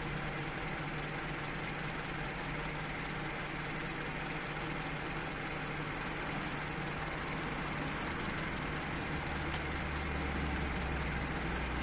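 Carbureted car engine idling low and rough, at about 600 RPM, while its idle is being turned up to stop the shaking. The steady hum gets a deeper, stronger note about nine seconds in.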